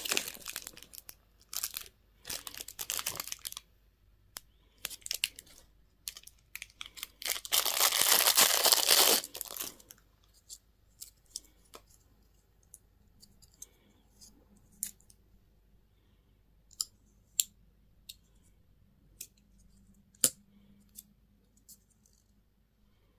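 Wrapping being crinkled and torn open in several bursts, the longest running from about seven to ten seconds in; after that, only scattered small clicks and taps.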